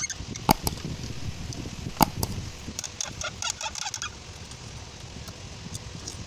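Screwdriver and hands working at a Mercedes C200's throttle body as it is loosened: two sharp knocks, about half a second and two seconds in, then a quick run of small clicks and taps that dies down near the end.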